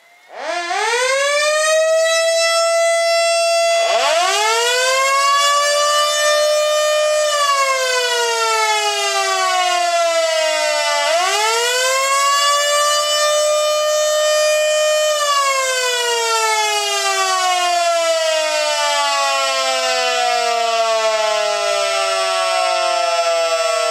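Two Federal electromechanical sirens sounding together. A 24-volt Federal Model D winds up within the first second and holds one steady alert tone. About four seconds in, a Federal Model 2 winds up, holds, winds down partway, then winds up and holds again before a slow wind-down: two cycles of a short attack signal.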